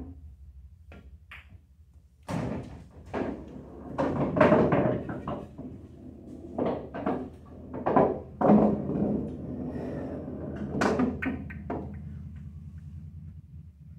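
Pool balls and cue knocking on a coin-operated bar pool table: a shot, then a run of knocks and thuds as a pocketed ball rolls and clunks through the table's ball return. A steady low hum runs underneath.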